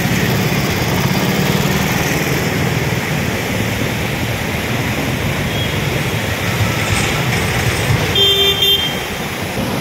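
Traffic driving through deep floodwater on a road: vehicle engines running under a steady wash of splashing, churning water. A short car horn honk sounds near the end.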